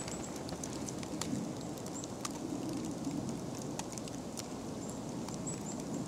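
Kelpies bounding through deep snow, their paws landing in soft thuds and crunches, over a steady low rush of outdoor background noise with scattered small clicks.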